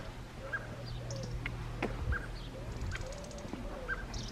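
Birds calling outdoors: a short chirp repeated about every half second, with a few softer lower calls between, over a steady low hum.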